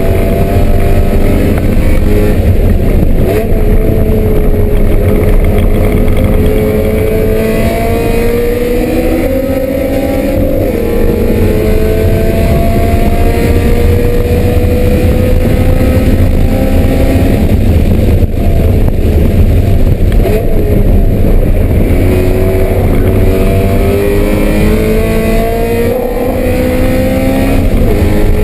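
BMW M3 engine running hard on a race circuit, its pitch climbing steadily under acceleration and dropping at a gear change about a third of the way in, then climbing again near the end, over loud road and wind noise.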